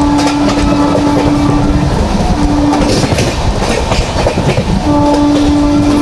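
Locomotive horn sounding as the Shatabdi Express runs through a station without stopping: a long blast that ends about two seconds in, a short blast soon after, and another long blast starting near the end. Underneath, the coaches' wheels rumble and clatter over the rail joints at speed.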